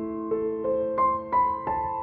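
Background music: a gentle piano melody, with notes struck about three times a second and left ringing.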